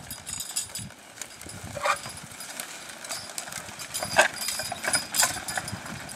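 A team of two draft horses pulling a disc harrow through plowed soil: hoofbeats with the irregular clank and rattle of the harrow's metal frame and hitch chains, and a few sharper knocks about 2, 4 and 5 seconds in.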